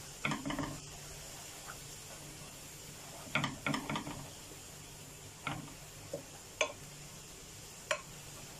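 Wooden spoon scraping and knocking against a nonstick frying pan while stirring minced garlic frying in butter, in short bursts a few seconds apart, over a faint steady sizzle.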